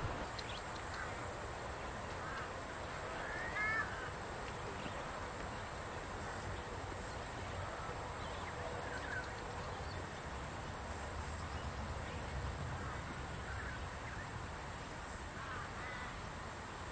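Birds calling outdoors: short rising-and-falling calls every few seconds over a steady background hiss.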